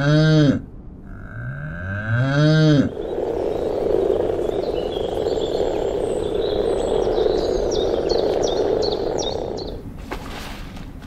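A cow mooing twice, each moo rising and then falling in pitch; the first is already under way and ends within the first second. About three seconds in, a dense chorus of croaking frogs starts up and runs on until it stops abruptly near the end.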